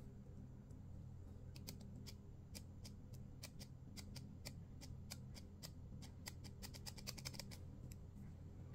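Light plastic clicks and ticks from fingers handling a plastic ballpoint pen, scattered at first and coming quickly near the end, over a faint steady low hum.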